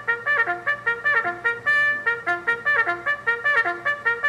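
Trumpet fanfare: a quick run of bright brass notes, one after another.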